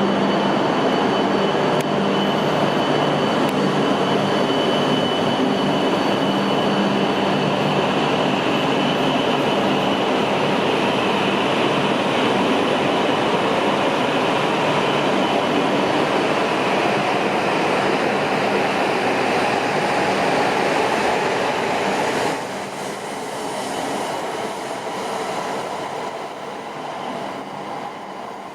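E5 series Shinkansen train running through a station: a loud, steady rush of train noise with a faint rising electric whine, dropping off sharply about 22 seconds in and then fading.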